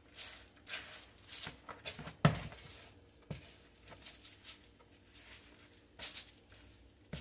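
Hands mixing soft, wet bread dough in a bowl: irregular squishing and slapping strokes, with one heavier thump about two seconds in.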